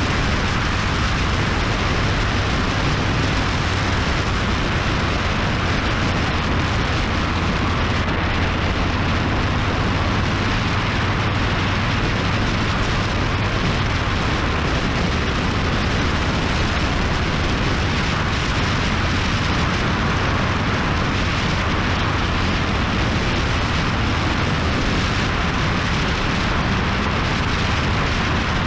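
Steady wind rush over the microphone of a motorcycle at riding speed, with the motorcycle's engine running as a steady low drone underneath.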